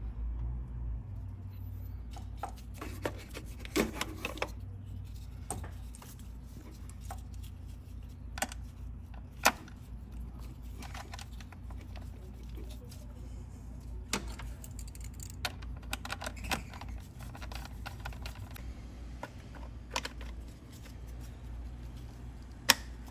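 Scattered small clicks and taps of hand tools and parts being handled while changing the spark plug and ignition coil on a BMW B58 engine, with a couple of sharper clicks near the end, over a steady low hum.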